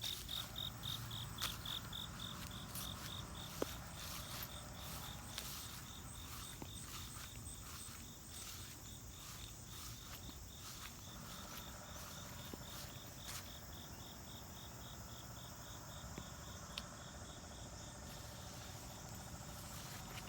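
Insects chirping outdoors: a steady train of high, even pulses, several a second, with a few faint scattered clicks.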